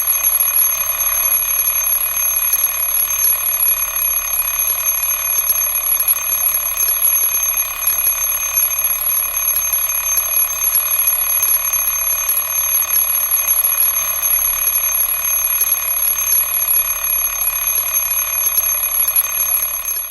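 Alarm clock ringing continuously, a loud, steady, high-pitched ring with no breaks.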